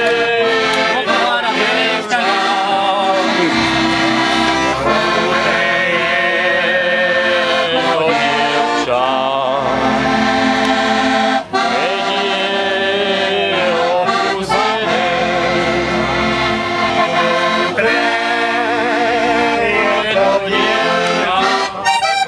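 Accordion playing a tune in a traditional folk style, with held notes and chords that go on without a break.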